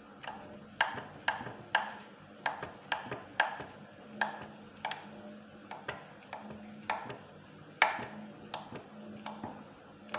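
Sharp knife cutting up sausages: a string of sharp knife taps, about two a second, unevenly spaced.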